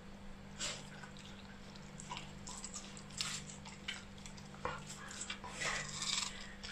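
Siberian husky puppy licking and chewing juicy watermelon flesh from the rind: irregular short, wet smacks and clicks.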